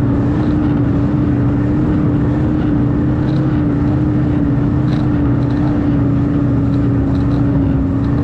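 Snowmobile engine running at a steady cruising speed: a constant drone with one held pitch that sags only slightly.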